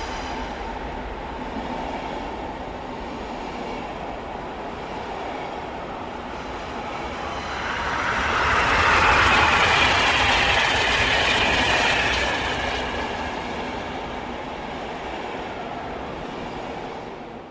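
High-speed train running on rails: a steady rumble of wheels on track that swells louder and brighter, with a high squealing rush, from about eight seconds in, then eases back. The sound cuts off abruptly at the end.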